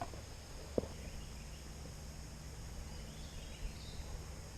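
Steady outdoor insect chorus, a high-pitched steady trilling, over a low background rush, with a single sharp click a little under a second in.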